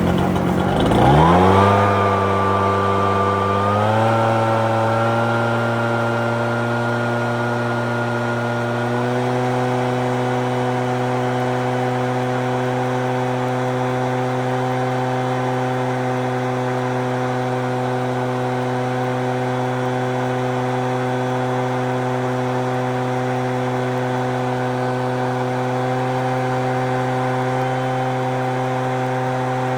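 An engine starts, climbs in pitch over the first few seconds, steps up twice more, then runs steadily at one constant high speed.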